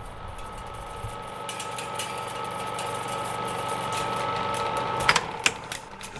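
Horror-film sound design: a sustained drone of two steady high tones over a low hum, swelling slowly louder and cutting off abruptly about five seconds in, followed by a couple of sharp clicks.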